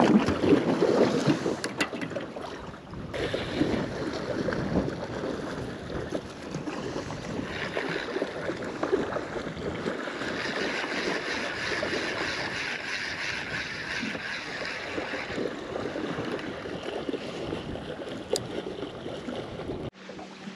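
Wind buffeting the microphone over water lapping against a small aluminium boat's hull.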